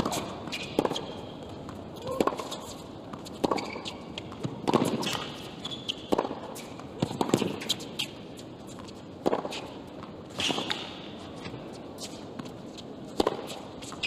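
Tennis ball struck back and forth with racquets in a rally on a hard court: a serve, then sharp pops roughly every second and a half, with a longer gap before the last one.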